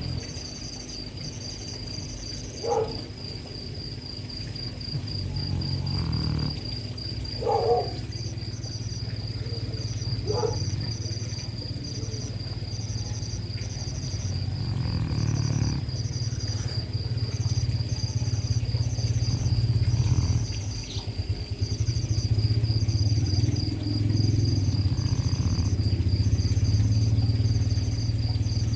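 A sleeping dog snoring heavily, a low buzzing rattle that grows louder over the stretch, with brief dips between breaths. Crickets chirp steadily throughout, and a few short squeaks come in the first ten seconds.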